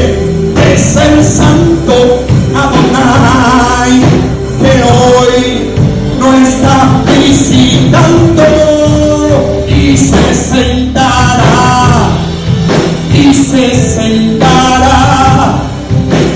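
Live gospel worship music: singing over an accompanying band.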